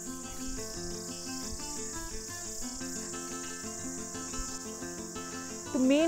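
Steady high-pitched insect chorus, with background music playing a simple melody of short notes.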